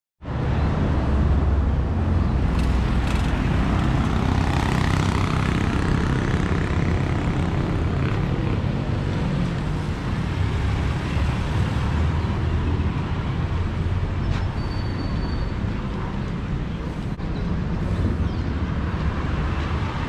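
Steady road traffic noise: vehicle engines and tyres rumbling, with a few faint clicks and a brief high tone about fifteen seconds in.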